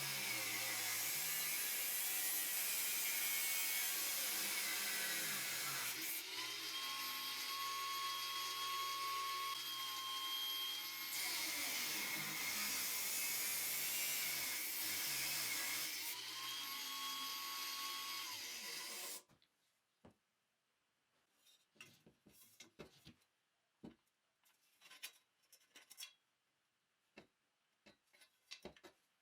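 Angle grinder running at speed, a steady high whine over a harsh grinding noise, its pitch shifting in several stretches as it works. It stops suddenly about two-thirds of the way through, leaving only faint scattered clicks and taps.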